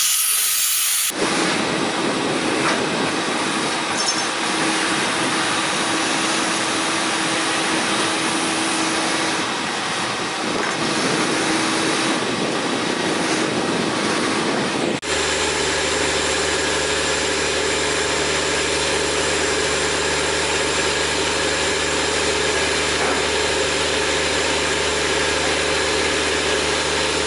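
Steady hissing machine noise. After a sudden cut about halfway through, an engine idles with a steady, even hum.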